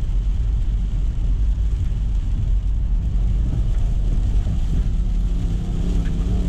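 Toyota 1UZ-FE VVTi V8 heard from inside the Mitsubishi Delica van's cabin while driving: a steady low rumble, with the engine note climbing in pitch over the last few seconds as it revs out to the rev limiter.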